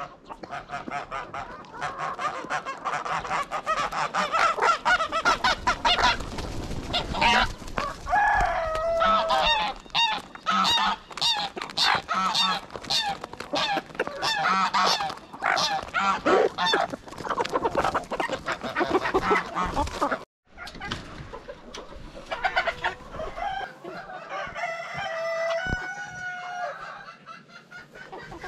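A flock of chickens, hens and roosters, clucking and squawking, many short calls overlapping, some sliding in pitch. About two-thirds of the way through the sound cuts out for a moment, and after it the calls are fewer and more spaced out.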